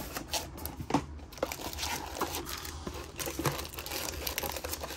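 Plastic wrapping crinkling in short, irregular rustles as hands pull the contents out of an opened cardboard trading-card box.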